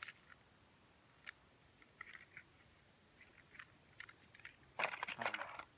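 Small crackles and light clicks of grass being brushed aside and a plastic toy truck being handled, with a louder, denser burst of rustling a little before the end.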